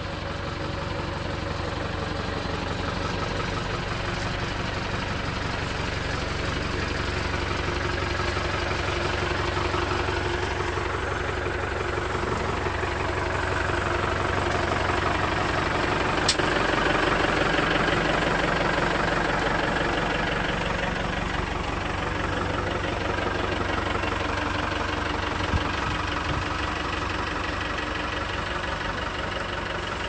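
Tata 407 diesel engine idling steadily, with one sharp click about halfway through.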